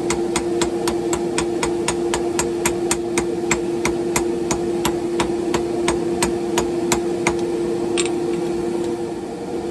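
Hand hammer striking a hot wrought iron billet on an anvil in quick even blows, about four a second, forge welding a face onto it by hand. The blows stop near the end, and a steady hum runs underneath.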